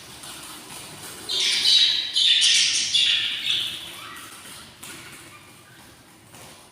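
Budgerigar chicks in the nest box giving raspy begging calls for food, a loud rasping burst from about a second and a half in that fades over the last few seconds.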